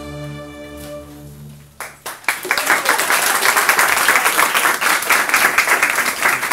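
A student string orchestra's closing chord held and dying away, then an audience applauding from about two seconds in.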